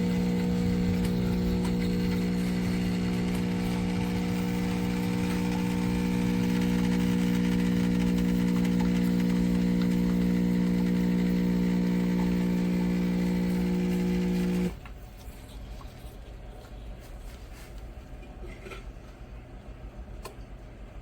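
Espresso machine's vibratory pump buzzing steadily while pulling a shot, then cutting off abruptly about fifteen seconds in, leaving only a faint low background.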